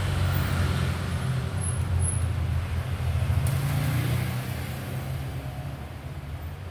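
A motor vehicle's engine running low and steady, fading away over the last two or three seconds.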